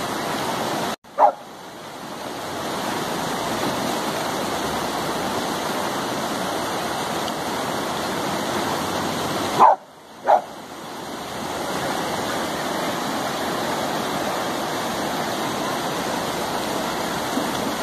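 Samoyed barking three times: once about a second in, then twice in quick succession about ten seconds in. A shallow rocky stream rushes steadily underneath.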